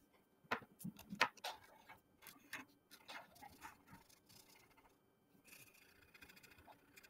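Crayons on paper: faint scratchy drawing strokes, with scattered light clicks and taps as a crayon is put down on the table and another picked up. A steadier stretch of scratching begins about five and a half seconds in as circles are coloured.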